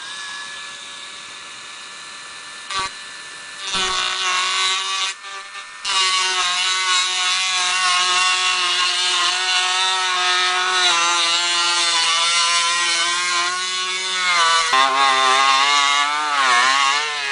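Dremel rotary tool running at about 15,000 RPM, grinding an aluminum AR-15 upper receiver to enlarge the ejection port. A steady whine comes on at the start, the grinding hiss grows loud about six seconds in, and the pitch sags and wavers under load near the end.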